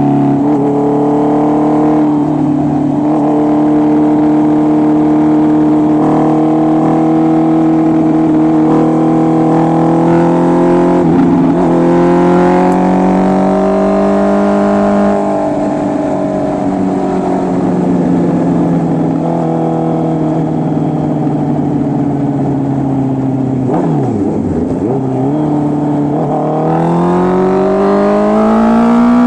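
Honda CB650R's inline-four engine running loud through an SC Project full exhaust system while riding. Its pitch climbs gradually with a few brief breaks, drops sharply and briefly about 24 seconds in, then revs up steeply near the end.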